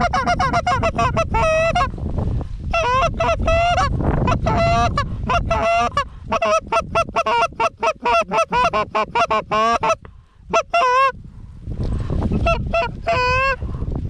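Short-reed Canada goose call blown hard in rapid runs of clucks and honks, about six notes a second, with a short break about ten seconds in, calling to passing flocks of Canada geese. Wind rumbles on the microphone underneath.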